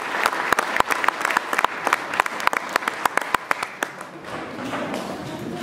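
Audience applauding: many hands clapping at once, thinning out and fading about four seconds in.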